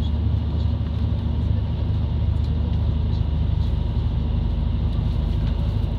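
Interior running noise of a JR Kyushu KiHa 72 series diesel railcar: a steady, loud low drone from the diesel engine and running gear, heard inside the passenger cabin.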